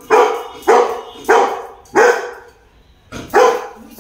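Golden retriever barking: five loud single barks, roughly one every half second to second, with a longer pause before the last.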